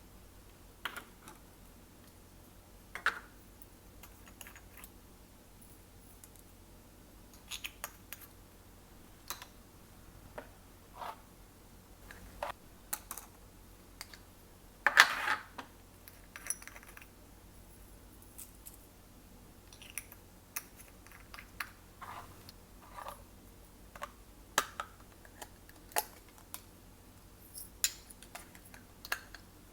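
Glossy slime being worked by hand, giving irregular small sticky clicks and pops, with one louder, longer burst about halfway through.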